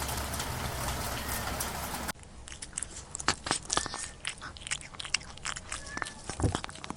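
A steady noisy hiss with a low hum, cutting off abruptly about two seconds in, then irregular crunching and chewing clicks.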